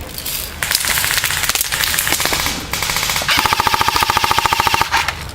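Airsoft electric guns firing on full auto: rapid, evenly spaced shots in two bursts, the second burst louder and very regular with a motor whine under it.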